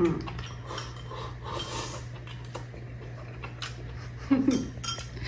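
Chopsticks clicking and scraping against a porcelain rice bowl as the food is stirred and eaten, a few scattered clicks, with a brief vocal sound about four seconds in. A low steady hum runs underneath.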